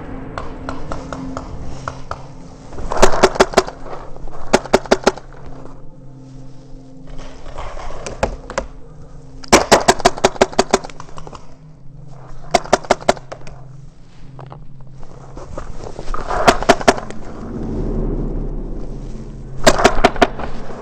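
Tippmann X7 Phenom paintball marker firing in rapid bursts: six strings of sharp pops, around ten shots a second, with pauses between them.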